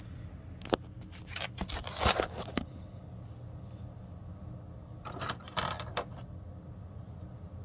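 Handling noises: sharp clicks and knocks with rustling, in two short clusters, as hands work on a heat press and its packaging.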